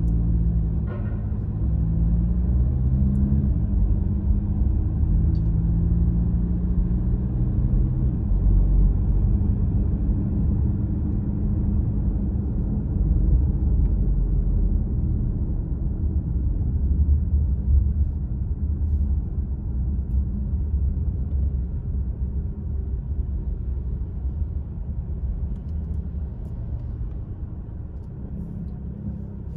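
Car driving: a steady low rumble of engine and road noise, rising and falling gently, with an engine hum that is clearer in the first several seconds.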